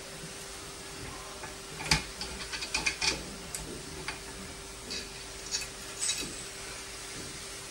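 Metal parts of a microscope boom stand clicking and knocking as the focus mount is fitted onto the arm and its clamp knobs are worked by hand: one sharp click about two seconds in, then a quick run of clicks and knocks, and a few scattered clicks after.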